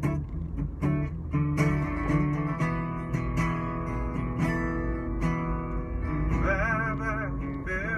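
Acoustic guitar strummed in a live song inside a car. A man's singing voice comes in near the end, held notes wavering with vibrato over the chords.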